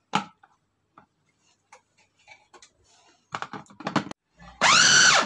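Plastic parts of a Homeelec electric food chopper clicking and knocking as the lid is fitted, then its motor whirring in one short pulse near the end, the pitch rising as it spins up and dropping as it stops, chopping raw chicken with onion, chilli and spices.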